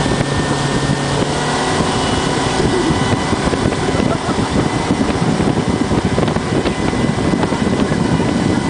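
Motorboat's outboard engine running at speed while towing, mixed with the rush of the churning wake and wind buffeting the microphone.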